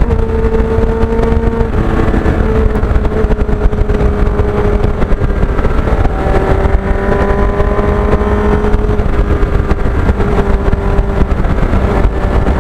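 Motorcycle engine running at a steady cruising pace, its pitch drifting slightly up and down over a heavy low rumble, most likely the 1989 Kawasaki GPX750R's inline-four being ridden.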